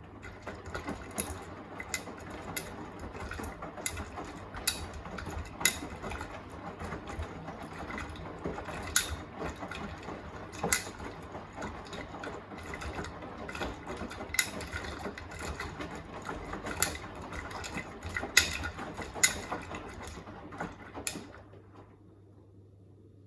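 Beko WTK104121A washing machine drum tumbling laundry during the wash of a Quick 40° programme: a churning rumble with irregular sharp clicks and knocks. It stops suddenly near the end as the drum pauses.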